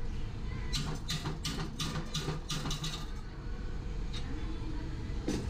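A quick run of light clicks or taps, about four a second for around two seconds, then a single knock near the end, over a steady low hum.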